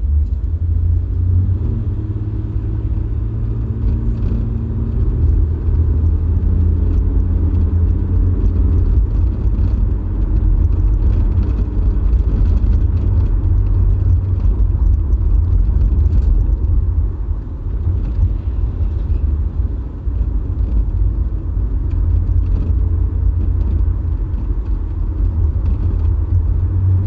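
Car engine and tyre noise heard from inside the cabin while driving: a steady low rumble with a faint engine hum that shifts in pitch with speed.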